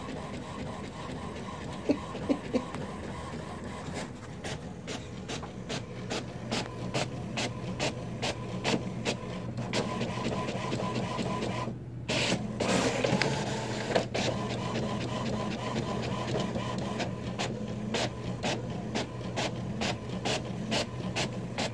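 Inkjet printer printing: the print head carriage shuttling back and forth over a steady low motor hum, with many quick clicks and a louder stretch about twelve seconds in.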